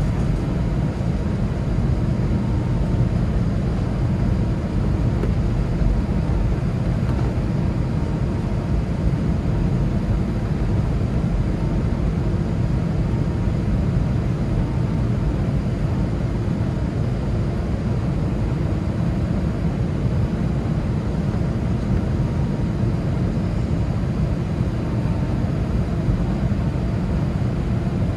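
Steady low rumble inside the cabin of an Airbus A319 taxiing with its CFM56 turbofan engines running, with a faint steady whine above the rumble.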